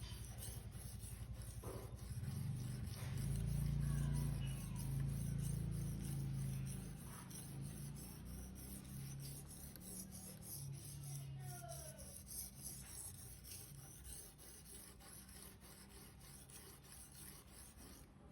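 Victorinox knife blade being stroked again and again across a sharpener, a run of short rasping strokes. Under it, a low hum swells about two seconds in and fades by the middle.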